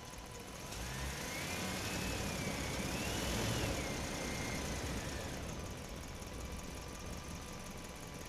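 Motor noise swells up and fades away over a few seconds, carrying a whine that rises and falls in pitch, over a steady low rumble and a faint steady hum.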